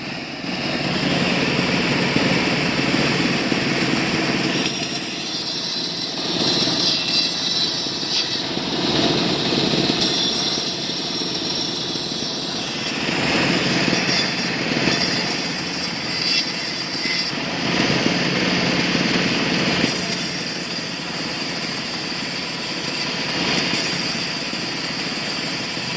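Small sawmill running continuously, its motor and saw working through wood, with the sound changing every few seconds as the load on the saw shifts.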